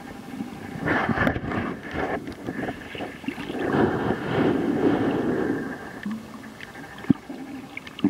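Underwater ambience picked up by a submerged camera: a muffled, irregular rushing rumble that swells twice, with scattered clicks, a sharper click near the end, and a faint steady whine.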